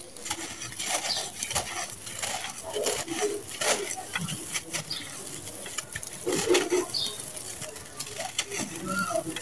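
Hands crushing and crumbling lumps of dry, dusty red sand-cement, giving an irregular run of gritty crunches and crackles as grains pour between the fingers.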